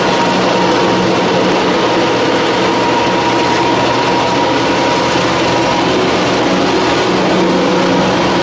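Animal feed pellet mill running steadily: a loud, even mechanical drone with a thin high hum.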